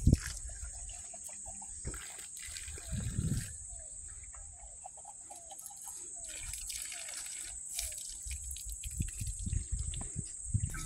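Water trickling and dripping as a coffee cup is rinsed at an outdoor tap. Wind gusts rumble on the microphone, strongest at the very start and near the end, and a string of short chirps sounds about halfway through.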